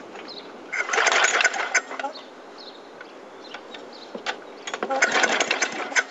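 Two pulls on a Murray lawn mower's recoil starter, each a burst of about a second as the small engine cranks over without catching.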